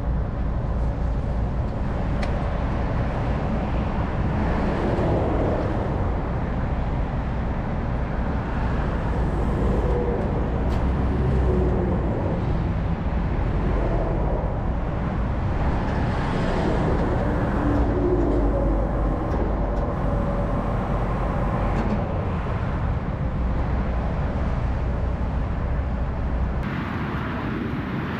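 Steady road-vehicle noise with a deep low rumble, which drops away shortly before the end.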